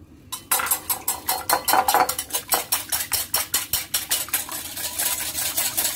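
Metal wire balloon whisk beating two raw eggs in a glass bowl, its wires clicking against the glass about five times a second, running into a quicker, more continuous clatter near the end.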